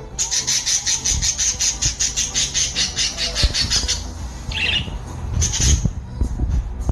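Budgerigars chattering: a fast, even high trill for about four seconds, then a couple of short chirps.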